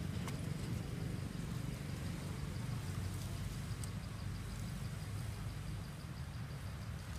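Outdoor ambience: a steady low rumble, with an insect chirping in a faint, even, high-pitched pulse throughout.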